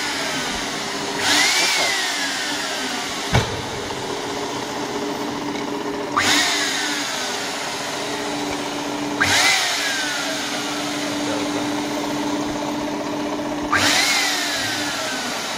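Homemade turbojet engine being spun by its homemade starter over a steady hum: four times a rush of air noise starts suddenly with a whine that jumps up and falls away, with one sharp click between. The starter cannot bring the turbine up to idle speed, and the engine does not catch.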